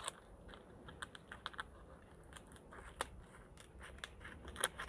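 Scissors snipping and crackling through a thin clear plastic box around a palm offshoot's roots, with metal scraping in the soil: faint, irregular small clicks, a sharper snap about three seconds in.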